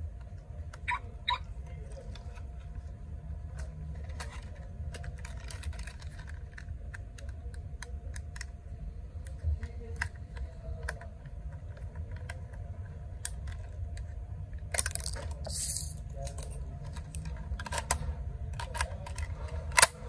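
Small screwdriver working screws on a plastic toy RC car and its remote: scattered light clicks and taps of metal on plastic as the battery cover is undone, with a longer rustle of handling about three quarters of the way through, over a steady low hum.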